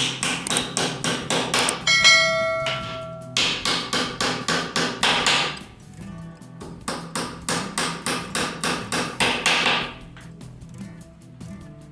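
A hammer striking repeatedly and fast, about four blows a second, with a short break about six seconds in, stopping about ten seconds in. A ringing tone sounds over the blows for about a second and a half, starting about two seconds in.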